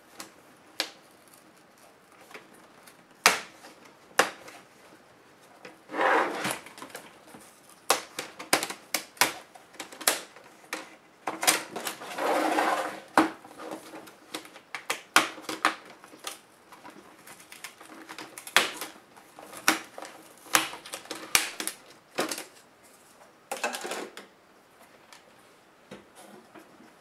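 Lenovo T500 laptop's plastic display bezel being pried off its snap clips: a string of sharp plastic clicks and snaps, with two longer scraping stretches about six seconds in and around twelve seconds in.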